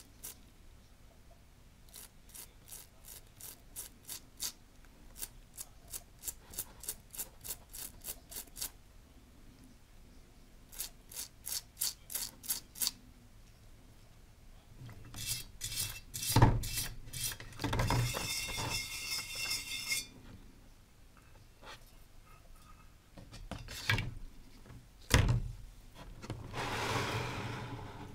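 Hand wire brush scrubbing a small corroded brass lamp part in quick repeated strokes, about two to three a second, with a short pause partway. Later comes louder scraping and handling, with a few sharp knocks of small metal parts.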